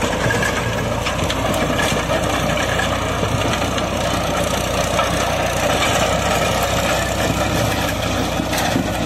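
New Holland 3600-2 tractor's three-cylinder diesel engine running steadily under load, turning a PTO-driven rotavator whose blades churn dry, hard soil, with scattered clicks through the steady churning.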